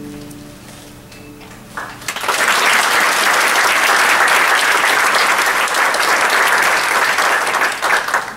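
The last chord of a harp ensemble rings out and dies away, then an audience breaks into applause about two seconds in. The clapping holds steady and starts to thin near the end.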